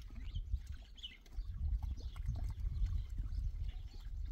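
Wind buffeting the microphone in an uneven low rumble, with a few faint, short high chirps about a second in.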